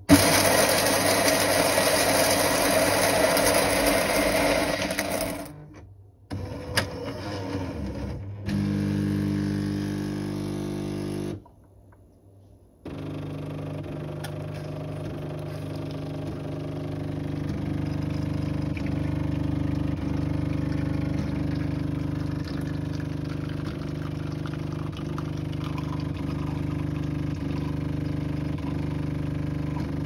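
Jura E8 automatic coffee machine running a brew cycle: its built-in grinder grinds beans loudly for about five seconds, then a motor whirs briefly, and after a short pause the water pump hums steadily with faint regular clicks while espresso pours.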